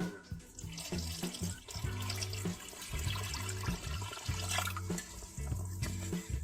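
Running water, a steady splashing hiss, over background music with a bass line.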